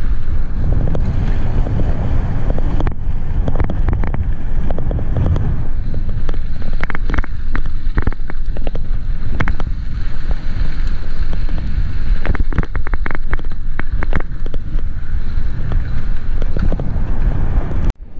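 Wind buffeting a handlebar-mounted camera's microphone as a mountain bike rolls quickly down a dirt road, with clusters of sharp rattles from the bike jolting over bumps. The sound cuts off abruptly near the end.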